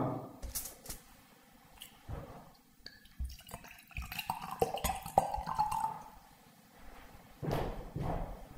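A drink poured from a bottle into a glass, the liquid running from about four to six seconds in, with a few light knocks and clinks around it.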